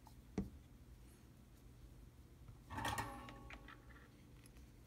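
Small handling sounds on a workbench as tools are put down and picked up: a single sharp knock about half a second in, then a brief clatter with a short ringing tail about three seconds in.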